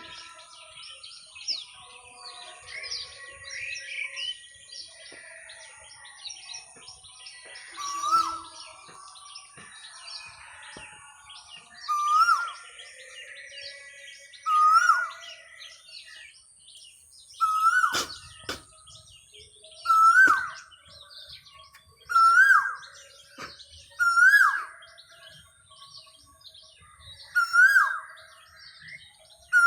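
Asian koel calling its 'kuhu kuhu' song: a clear note that rises and then drops, repeated about every two to three seconds from several seconds in, with small birds chirping in the background.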